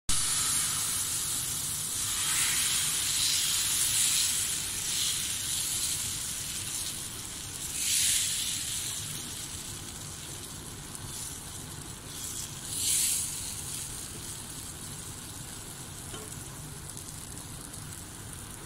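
Dosa batter sizzling on a hot pan as it is poured and spread out with a ladle. The hiss is loudest at first and slowly dies down, with brief louder swells about two, eight and thirteen seconds in.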